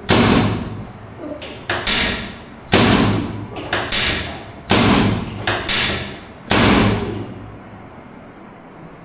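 A series of about seven loud thumps during chiropractic treatment, coming irregularly about a second apart, each ringing on briefly. They stop about two-thirds of the way through.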